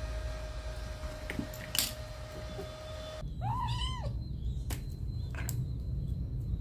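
A young kitten gives one meow that rises then falls in pitch, a little under a second long, about three seconds in. A few short sharp clicks follow.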